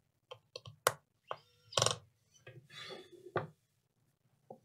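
Small pen-style electric screwdriver driving tiny screws into a laptop's chassis: a short whir whose pitch rises and then holds about a second in, among sharp clicks and knocks of the bit and screws against the plastic case.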